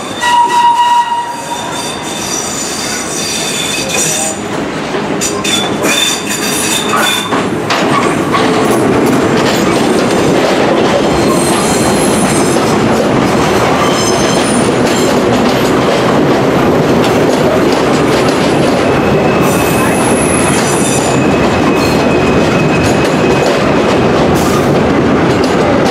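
Vintage New York City subway train rolling into an elevated station. It opens with a short, loud tone lasting about a second, then the wheels squeal high at intervals while the rumble and clatter of the cars on the steel track builds. From about eight seconds in, the passing cars make a loud, steady noise.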